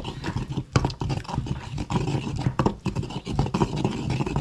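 Pestle grinding and crushing salsa in a molcajete: irregular scraping strokes with frequent short knocks.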